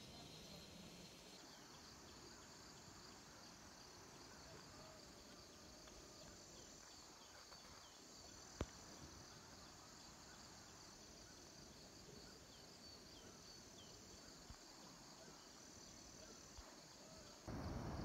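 Faint, steady high-pitched insect trilling, with a few short faint chirps and one sharp click about halfway through. A louder, steady rushing noise comes in just before the end.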